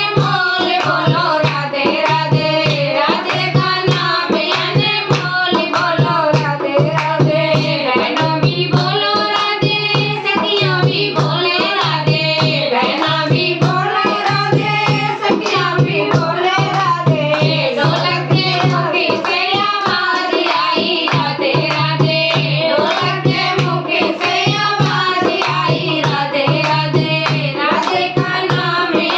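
Haryanvi devotional bhajan: a voice singing a melodic line over a steady, repeating hand-drum beat.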